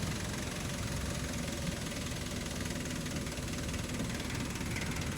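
Vehicle engine running steadily during a ride, a low, even rumble.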